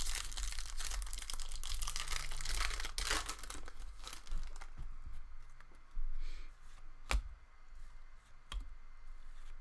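Foil trading-card pack wrapper being torn open and crinkled, with a rush of tearing and rustling in the first few seconds. Softer handling follows as the cards are slid out, with a sharp click about seven seconds in.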